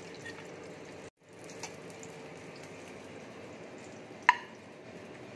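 Steady sizzling hiss of oil frying in the pan, with a brief dropout just after a second in. About four seconds in, a single sharp clink, the metal spatula knocking against the ceramic plate.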